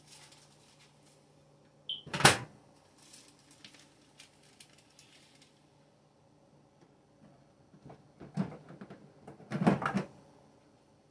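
Microwave oven door swung shut with a sharp bang about two seconds in. Near the end come a few lighter knocks and clatters as spice jars are moved on the shelf above.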